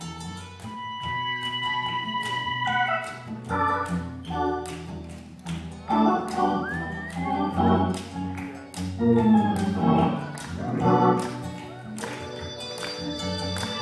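Live band playing an instrumental solo section: a keyboard with a sustained organ-like tone over bass, with a steady beat.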